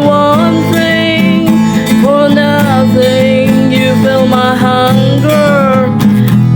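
Praise-and-worship music playing: a steady guitar accompaniment under a sliding melody line, as in the lead-in to a sung praise song.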